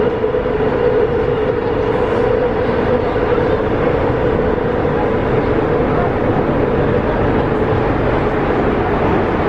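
Alstom Metropolis 98B metro train running, heard from inside the passenger car: a steady rumble and rolling noise with a constant droning tone over it.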